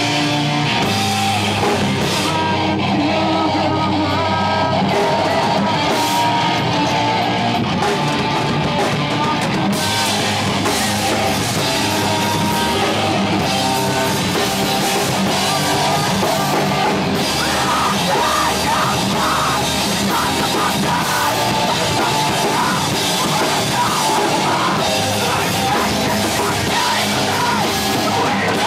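Live rock band playing loud: electric guitar and drum kit, with a singer's voice over it in the second half.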